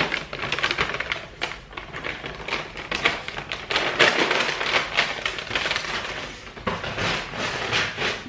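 Plastic pepperoni bag crinkling and rustling as it is handled, a dense crackle of many small clicks.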